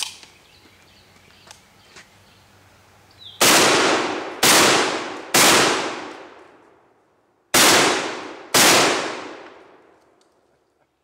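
Five 12-gauge shotgun slug shots: three about a second apart, then after a pause of about two seconds two more, each with a long echoing tail.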